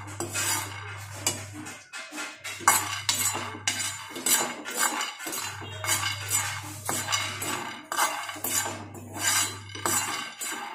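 A steel spoon stirring raw peanuts around a dry frying pan during dry-roasting, with repeated scrapes of metal on the pan and the peanuts rattling and rolling over it.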